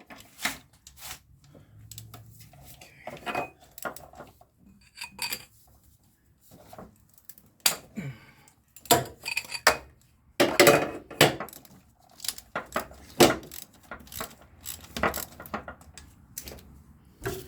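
Metal hand tools clinking and knocking in irregular sharp clicks as sockets, an extension and a wrench are fitted and worked on a starter mounting bolt.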